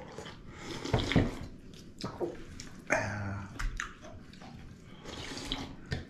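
Soup being slurped and sipped from bowls, with a few short knocks and clinks of dishes on the table.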